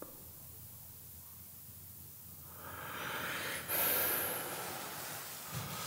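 Quiet room tone for the first half, then a person breathing heavily close to the microphone, with one sharper breath about a second later.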